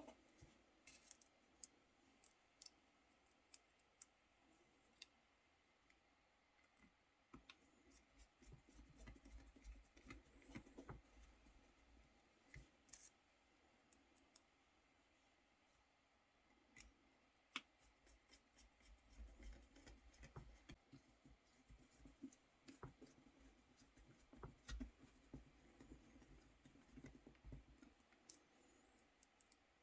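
Faint handling of Nokia 3310 phone parts: scattered single sharp clicks and small scratches, with stretches of soft rubbing and fumbling in between.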